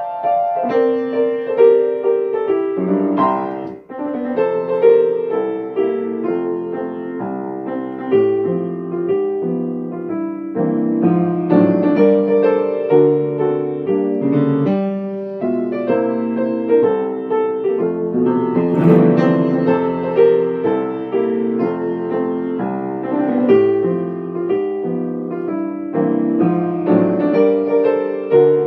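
Piano played solo by hand: a melody over chords, notes flowing without a break except for a brief dip about four seconds in.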